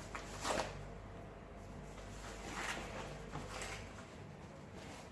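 A few soft clicks and taps from a small brass combination padlock being handled, over a faint low hum that drops away near the end.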